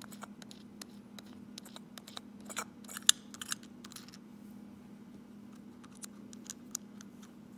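Small scattered clicks and scrapes of a metal centre plate being handled and turned on the rubber diaphragm of a VW autostick vacuum control valve, loudest in a cluster about three seconds in, over a steady low hum.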